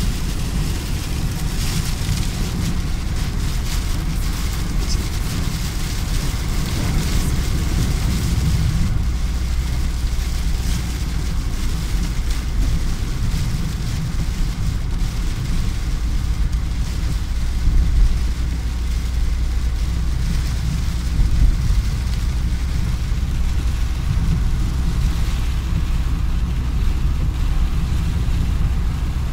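Steady low rumble inside a car driving on a wet road in heavy rain, with rain hitting the windscreen and wet tyre noise. The rain hits are denser in the first several seconds.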